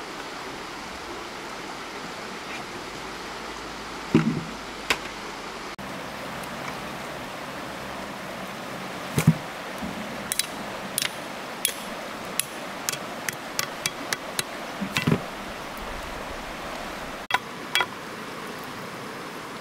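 Steady rush of running water with scattered sharp knocks and clicks. Three heavier thumps come about four, nine and fifteen seconds in.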